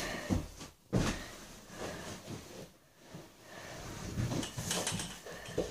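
Soft thumps, knocks and rustling of someone clambering over furniture, mixed with handling noise from a phone that is being jostled.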